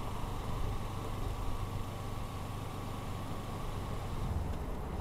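Motorcycle engine running at low, steady revs while riding slowly in city traffic, with road and wind noise.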